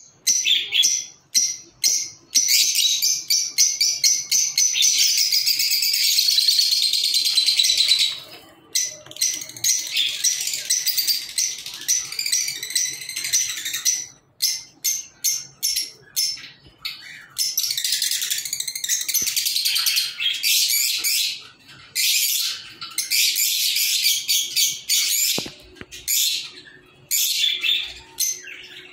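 Lovebirds chattering to each other: rapid, high-pitched chirps and squeaks in long runs, broken by a few short pauses.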